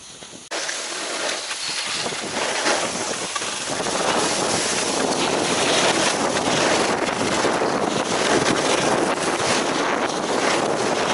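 Wind rushing over the microphone and skis scraping over packed snow on a fast downhill run. The rush starts suddenly about half a second in and grows louder about four seconds in.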